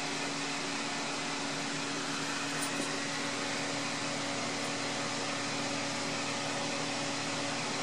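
Steady whir of the cooling blower and fan blowing air over a 3-1000Z power triode in an idling high-voltage RF amplifier, with a steady low hum under it. A faint tick about two and a half seconds in.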